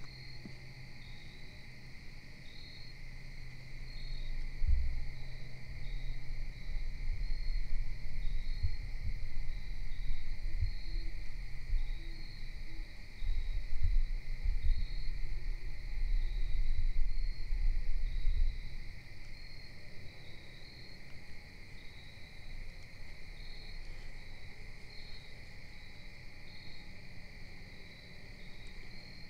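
Crickets and other insects chirping: a steady high trill with a short chirp repeating about once a second. A low rumbling noise with a few thumps runs from about four seconds in until about eighteen seconds and is the loudest sound.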